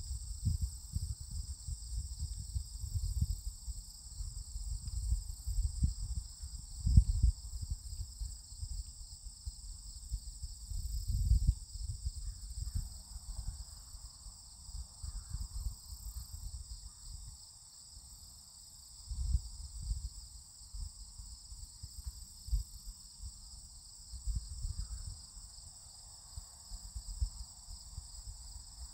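A steady, high insect chorus, with irregular low rumbling of wind buffeting the microphone coming and going over it.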